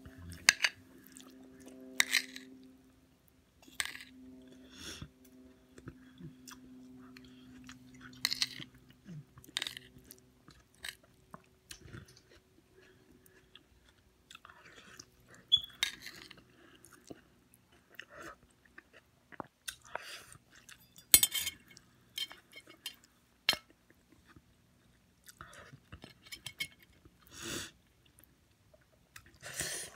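Close-miked eating sounds of a person eating turkey necks: chewing, with irregular sharp wet lip smacks and clicks.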